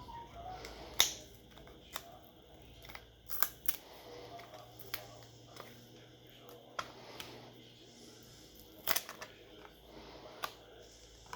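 Sharp, scattered clicks and taps of small tools and plastic parts as a smartphone is being taken apart, about eight of them, the loudest about a second in.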